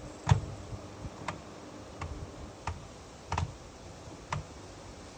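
Whirlpool FSCR 10425 washing machine giving six sharp clicks, each with a low knock, spaced about a second apart and not quite evenly, over a faint steady background.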